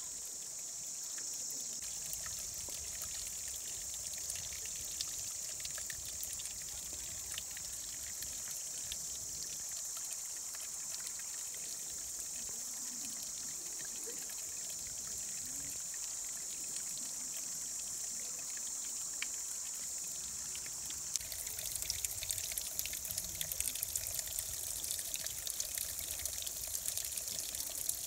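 Water trickling and dripping down a mossy rock face, a steady hiss. About 21 seconds in it becomes a denser patter of many small drops and splashes.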